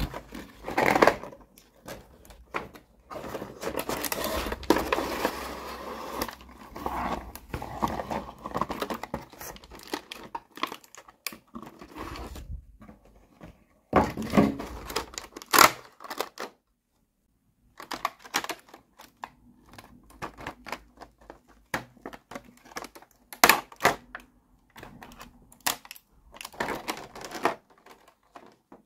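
Cardboard toy box and clear plastic blister tray being handled by hand: crinkling and rustling of the packaging, with many sharp clicks and taps of the stiff plastic.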